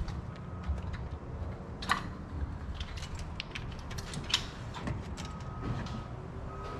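Steel fuel injection lines of a 12-valve Cummins clicking and scraping as they are worked loose and lifted off the P-pump: scattered light metallic clicks, a sharper one about two seconds in and a cluster a little after the middle, over a steady low rumble.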